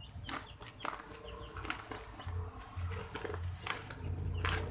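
Scissors snipping through a black plastic mailer bag, with a series of sharp snips and plastic crinkles at irregular intervals.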